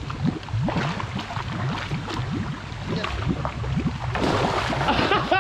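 Water splashing and sloshing close to the microphone, with a louder splash about four seconds in.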